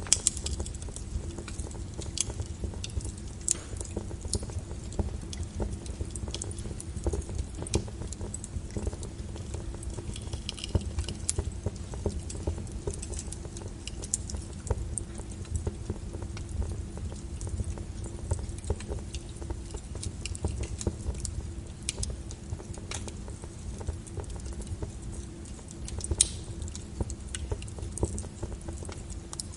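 Wood fire burning in a fireplace: a steady low rumble and hiss with irregular crackles and sharp pops throughout, a few louder pops near the start and near the end.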